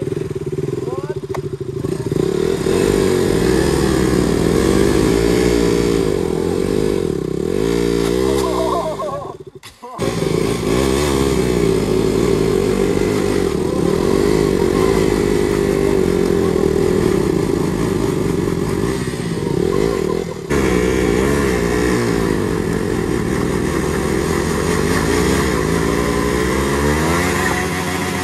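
Two KTM motorcycles, an RC and a Duke, tied rear to rear with a rope and revved hard against each other in a tug-of-war, both engines held at high revs with a wavering pitch. The engine noise cuts out abruptly about ten seconds in, then picks up again at full revs, with a brief dip near twenty seconds.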